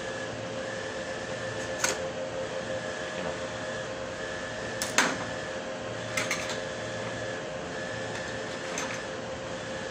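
Steady machine hum with a high tone that pulses on and off about once a second. A few sharp clicks and taps of small parts being handled sound over it, the loudest about five seconds in.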